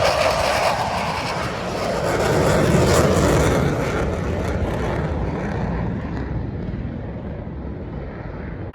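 Boeing EA-18G Growler jet flying by, a loud jet noise that fades as it moves away, its high hiss dropping off over the last few seconds.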